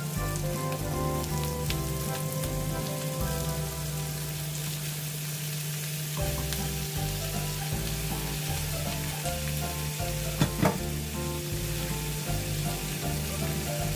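Chicken pieces frying in hot oil with sautéed garlic, onion and ginger: a steady sizzle, with stirring. Two sharp knocks come about ten and a half seconds in.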